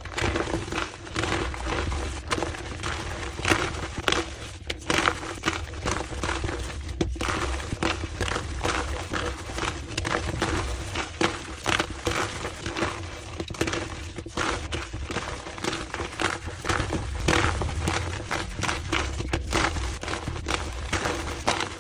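Blocks of gym chalk being crushed and crumbled, a dense, continuous run of crunchy crackles and snaps, played back at double speed.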